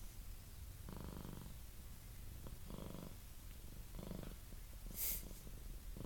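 Himalayan cat purring steadily, the purr swelling and easing every second or two. A brief hissing noise about five seconds in.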